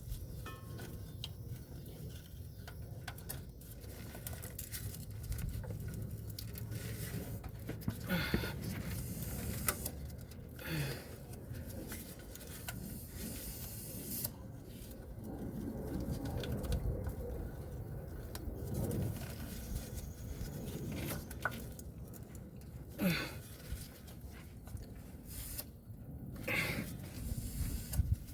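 Irregular clinks, scrapes and rustling of hands and tools working at a pickup truck's hard-to-reach oil filter, with a few sharper clicks scattered through.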